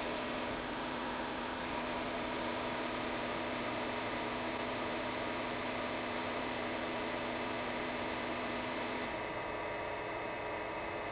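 A small electric blower or fan runs steadily with a high whine, then cuts off about nine seconds in, leaving a fainter steady hiss.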